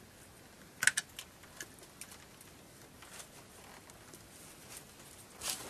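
A few light clicks and taps over a faint background, with one sharp click about a second in and scattered fainter ones after it.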